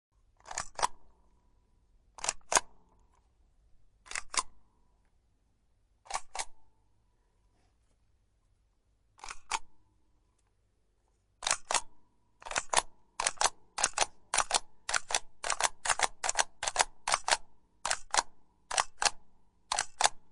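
Stamp being struck down repeatedly, each strike a sharp double clack. Five strikes come a couple of seconds apart, then a fast run of about three a second starts a little past halfway.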